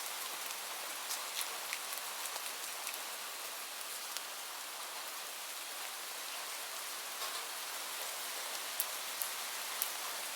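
Steady rain falling, an even hiss with scattered sharp drips of drops striking a surface.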